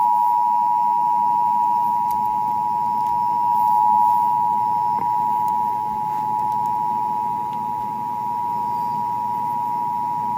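Emergency Alert System attention signal: a steady two-tone alarm held without a break, cutting off suddenly near the end. It is the alert tone that comes before a broadcast emergency warning message.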